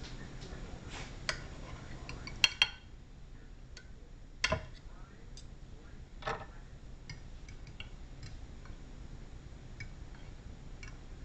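Cutlery clinking against a dinner plate, a handful of separate clinks: the loudest two close together about two and a half seconds in, another about four and a half seconds in, then a few fainter clicks.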